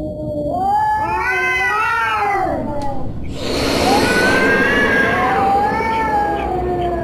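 Domestic cat yowling angrily in long, drawn-out wails that rise and fall in pitch. A harsh noisy burst comes about three seconds in, between two wails.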